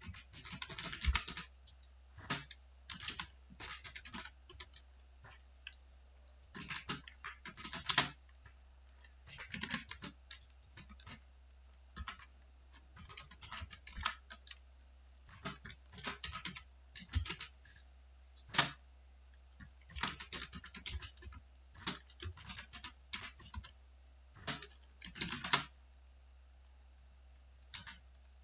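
Typing on a computer keyboard in quick spurts of keystrokes broken by short pauses, over a steady low hum.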